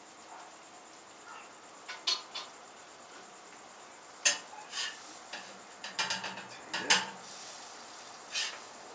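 Spatula clanking and scraping on a flat-top griddle as pancakes are turned: a scattered run of sharp clinks and scrapes, the loudest about four seconds in and again near seven.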